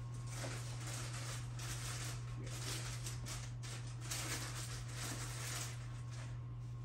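Quiet kitchen room tone: a steady low hum with faint rustling and light ticks scattered through it.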